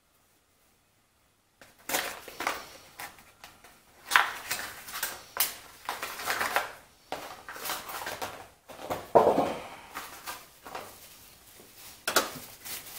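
Rustling, crinkling and irregular clicks and knocks of a new carburetor being taken out of its packaging by hand, after about a second and a half of silence.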